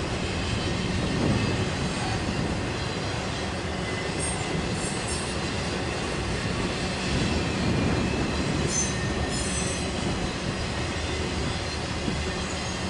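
Intermodal freight cars carrying highway trailers rolling past with a steady rumble of wheels on rail. Brief high wheel squeals come a few times a little after four seconds and again near nine seconds.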